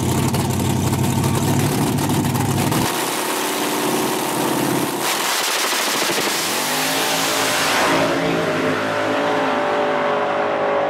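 Nitrous Buick Regal drag car's engine running loud and steady at the starting line. About three seconds in the sound changes abruptly to full-throttle drag-racing engines, their pitch climbing as the cars run down the track.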